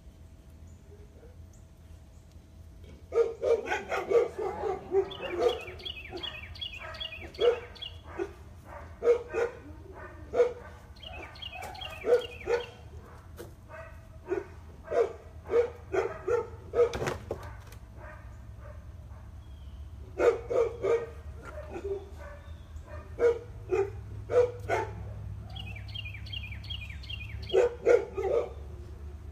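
A dog barking in runs of quick, sharp barks, starting about three seconds in and coming back in bursts several times.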